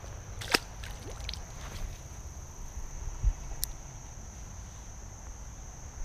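Insects trilling steadily at one high pitch over a low rumble of wind on the microphone. There is a single sharp click about half a second in and a soft thump about three seconds in.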